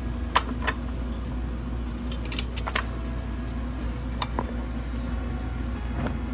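Wrench clinking against the Model T's oil drain plug as it is worked loose: a handful of short, sharp metallic clicks scattered through, over a steady low hum.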